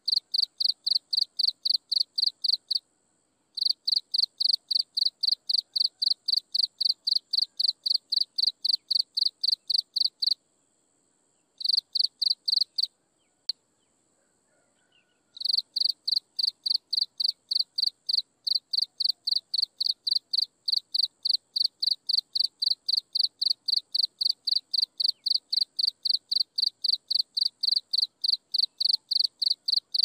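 An insect chirping in a steady, even rhythm of about three high-pitched chirps a second, with a fainter steady high trill underneath. The chirping stops for about a second near 3 s, and again for about five seconds midway, broken by one short run of chirps and a single click.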